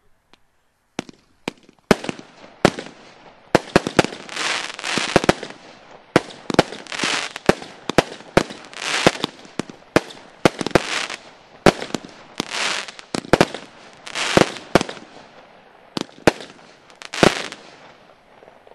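Maxx Line 'Thunder Rain' consumer firework cake firing shot after shot, about one or two a second, from about a second in until near the end. Each sharp report is followed by a short burst of crackling from the stars breaking overhead.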